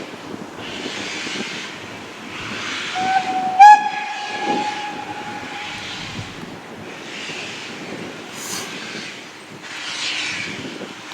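Steam locomotive whistle sounding one held note for about three seconds, starting just under 3 s in. Through the whole stretch, slow rhythmic bursts of hiss recur every one and a half to two seconds, like the exhaust beats of a locomotive working slowly.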